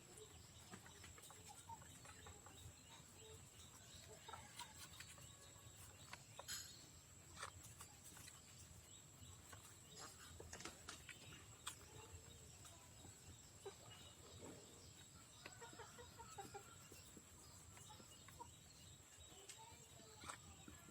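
Backyard chickens clucking faintly and on and off, short calls scattered through, with a few sharp clicks.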